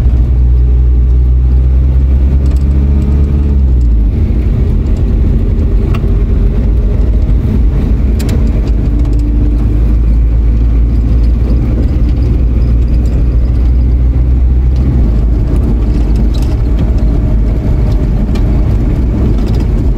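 Hyundai H100 motorhome driving, its engine running steadily under road noise. The engine note drops about four seconds in, then holds steady.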